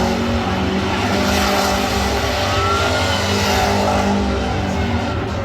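A car engine running at high revs with tyres spinning and squealing in a burnout, the squeals coming as short chirps over a steady din.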